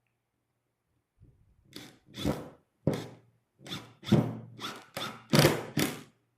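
A hand tool working wood: about eight short rasping strokes in an uneven rhythm, starting about a second in and growing louder toward the end.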